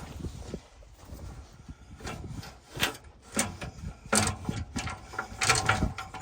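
Metal parts scraping and clicking in irregular bursts as a threaded pipe fitting is worked loose and pulled out, with a low rumble underneath.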